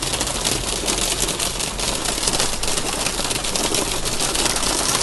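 Hailstones drumming on a car's roof and windshield, heard from inside the cabin: a dense, unbroken clatter of rapid hard hits.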